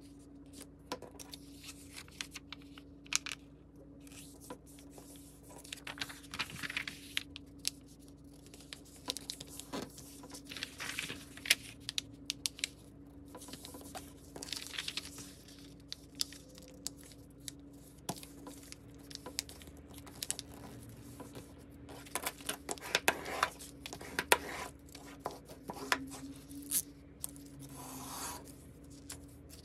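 A sheet of paper being handled and folded by hand, with irregular rustling and sharp crinkles as the folds are pressed and creased, sped up to double speed. A steady low hum runs underneath.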